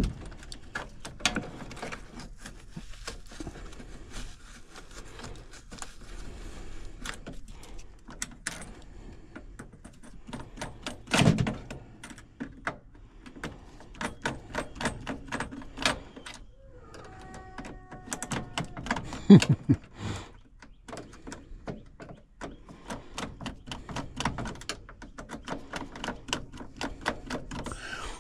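Hands-on installation work: irregular clicks, taps and knocks of tools and parts being handled against sheet-metal ductwork, with a couple of louder thumps. About two-thirds of the way through comes a brief high, steady whine.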